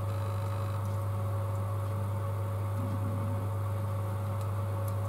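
Steady low electrical hum with a faint even hiss, a constant bench background with no handling noises.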